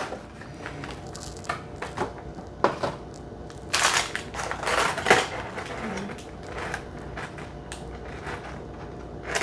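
Packaging of a boxed model airliner being handled and opened: crinkling, rustling and scattered clicks, louder about four and five seconds in.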